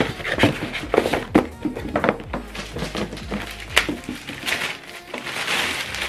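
Unboxing handling noise: a string of light knocks and taps as foam inserts and a cardboard box are moved on a table, then the crinkle of a plastic bag being pulled off near the end.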